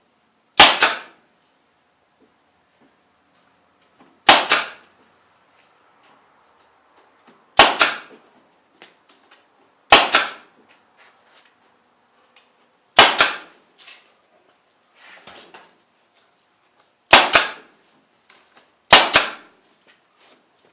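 A Harbor Freight staple gun firing staples to fasten wire fencing to a wooden frame: seven sharp shots a few seconds apart, each with a short tail.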